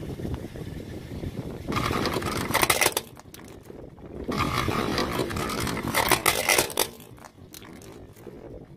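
A car tyre rolls over a plastic toy motorcycle and crushes it. The plastic cracks and crunches in two spells, about two seconds in and again from about four and a half seconds, over a low rumble.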